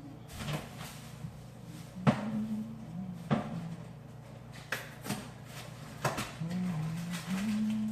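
A utensil knocking against a bowl about six times, sharp clinks a second or so apart, as chicken salad is spooned in.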